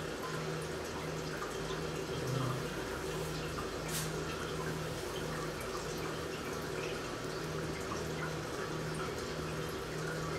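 Sake dripping and trickling from a sake bag into a glass tobin jar, a steady splashing of liquid. This is shizuku shibori: the sake runs out by gravity alone, with no pressing. A low hum pulses on and off in the background a little faster than once a second, and a single click comes about four seconds in.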